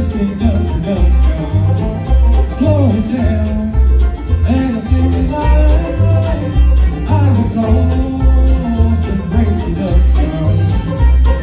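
Live bluegrass band playing a brisk song, with banjo and guitar over an upright bass walking a steady, even low line.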